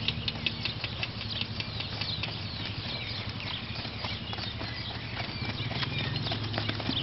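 Hoofbeats of a ridden Kaimanawa horse moving at speed over a sand arena, a run of quick irregular ticks, over a steady low hum.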